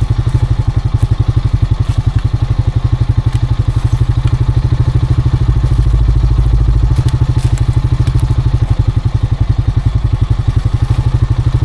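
ATV engine idling steadily, with a fast, even low pulse and a few faint clicks on top.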